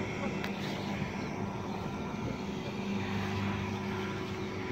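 An engine running steadily, a low even hum, with a faint click about half a second in and no gunfire.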